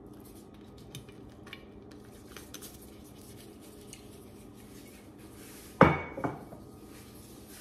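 Faint clicks and taps as a vinegar bottle is handled and capped, then, near the end, a loud clunk with a short ring and a smaller knock just after as the bottle is set down on the stone countertop.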